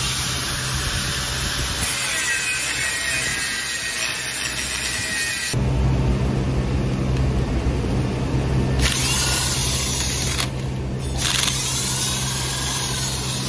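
Electric angle grinder grinding a steel compressor bracket for about the first five and a half seconds. Then comes a steady low hum, with a handheld electric driver running in two spells near the end, turning bolts on a car air-conditioning compressor bracket.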